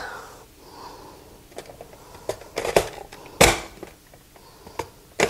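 Plastic push-down vegetable dicer clacking as its lid is pressed down to force raw potato slices through the blade grid. Several sharp knocks, the loudest about three and a half seconds in.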